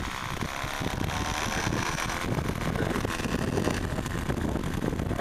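Radio-controlled model Cessna 182 taxiing on the ground, its motor running steadily at low power, with wind buffeting the microphone.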